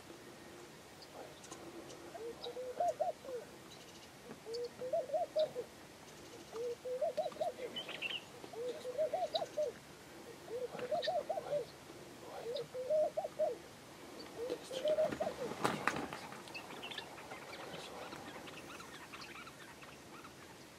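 A dove cooing over and over, about seven short bubbling phrases roughly two seconds apart, with faint chirps of small birds. A single sharp knock sounds about three-quarters of the way through.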